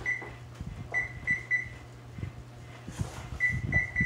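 An electronic oven control panel beeping as its buttons are pressed to set a 13-minute bake time: about seven short, high beeps in small groups, with a few soft knocks against a steady low hum.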